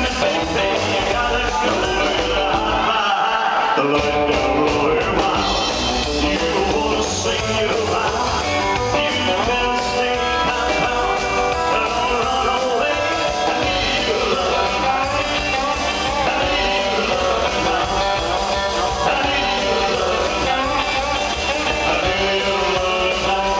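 Live rock and roll band playing, with a man singing into a microphone over an upright double bass.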